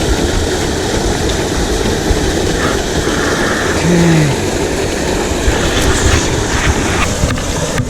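Steady rush of a fast-flowing mountain creek, with a short low falling tone about four seconds in.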